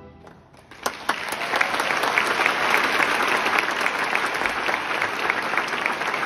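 A large concert-hall audience breaks into applause about a second in, just after the orchestra's final chord fades, and settles into steady, dense clapping.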